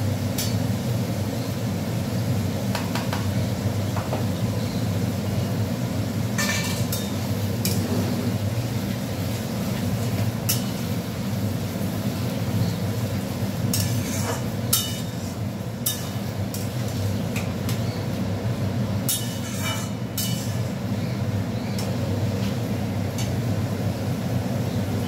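A metal spatula stirring and scraping in a cooking pan, with irregular clinks scattered through, as ginger-garlic paste is fried with onion, tomato and prawns. A steady low drone runs underneath.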